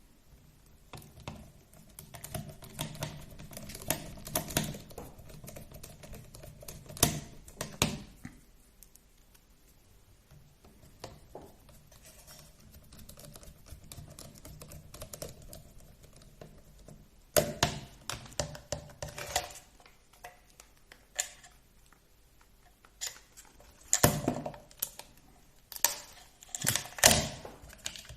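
Small hard plastic and metal parts of an RC drift car being handled and fitted by hand: irregular clicks and taps that come in clusters, with quieter handling and rustling between them.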